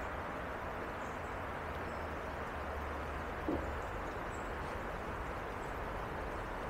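Steady rushing of flowing water, with one soft knock about halfway through.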